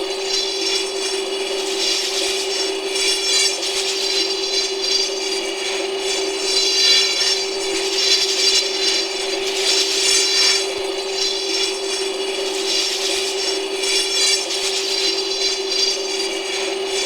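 Clone trooper Z6 rotary cannon sound effect: the barrels spinning at constant speed, a steady hum at one pitch under a dense high whirr, made to loop.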